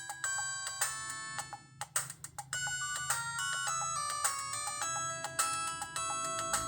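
LG MG180 mobile phone ringtone playing: a synthesized melody of short, bright notes in quick succession.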